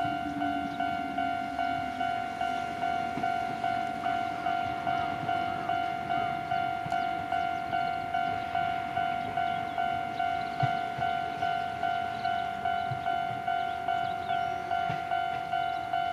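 Japanese level-crossing warning bell ringing steadily, about two strikes a second, while a train runs through the station. A lower whine from the train falls slightly in pitch over the first couple of seconds.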